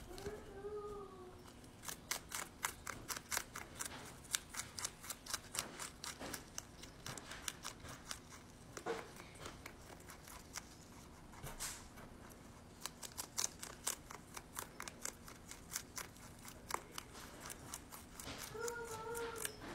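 A rabbit crunching a crisp lettuce leaf close up: quick runs of sharp chewing clicks, several a second, with a short lull in the middle.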